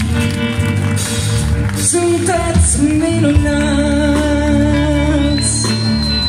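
Live rock band playing through a PA, with drums, bass and electric guitar. A long, slightly wavering note is held through the middle, and a thin high steady tone comes in near the end.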